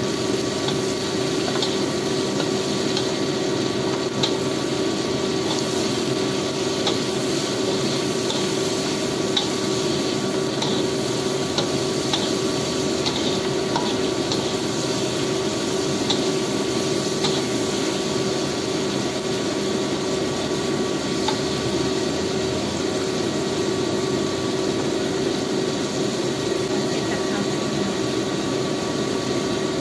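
Shrimp stir-frying in a wok: a steady hiss of cooking over a faint hum, with the metal spatula scraping and tapping against the pan now and then.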